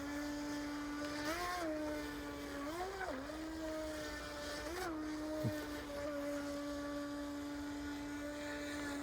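Battery-powered motor of a Revell Control Tide Breaker RC speedboat whining steadily while running across the water. Its pitch briefly rises and falls a few times.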